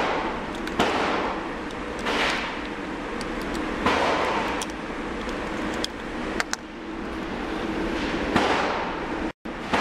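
Several gunshots from other lanes, each echoing around the indoor range, come a second or two apart at first and then after a longer gap. Small metallic clicks of .380 cartridges being pressed into a pistol magazine come in between.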